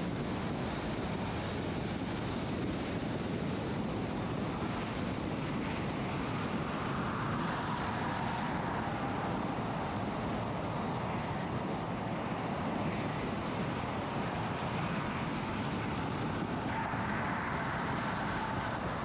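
Steady tyre and wind noise of a car driving at highway speed. A higher hum swells twice, about seven and seventeen seconds in.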